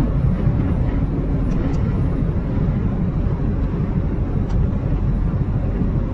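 Scania S580's 16.4-litre V8 diesel running under load as the nearly fully loaded truck pulls up a steep hill: a steady low rumble.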